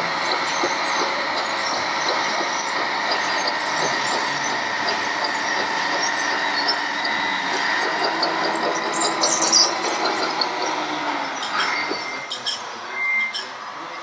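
Radio-controlled scale trucks and construction machines running: a steady mechanical whine with several held tones. It gets quieter near the end, where short beeps repeat about once a second.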